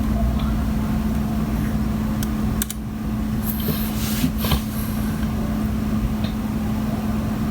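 Steady mechanical hum with one constant low tone over a haze of noise, and a few faint clicks.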